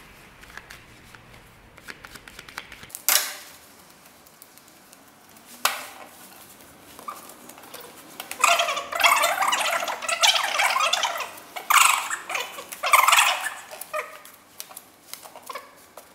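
Playing cards being handled at a table. Rapid light card clicks are followed by two sharp slaps of cards put down, then several longer, louder runs of dense card rustling, as in shuffling or sorting, in the second half.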